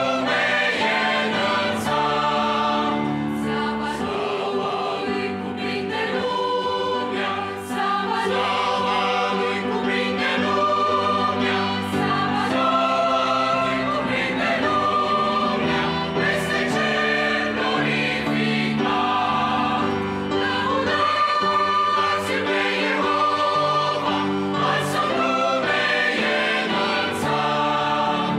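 Mixed choir of men's and women's voices singing a Romanian hymn in harmony, held notes moving from chord to chord.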